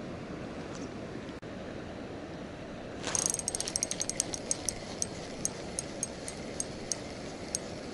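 Steady rush of river current. About three seconds in, a spinning reel and its line give a short hiss, then a run of sharp high ticks that come more and more slowly and thin out, as the rod is swung out for a cast.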